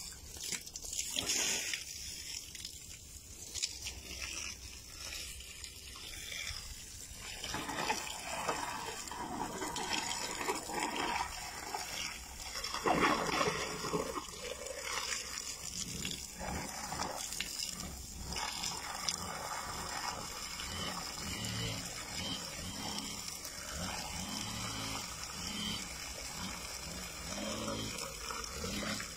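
Water from a hose running and splashing into the tip of an elephant's trunk and onto the wet concrete floor as the elephant drinks from the stream.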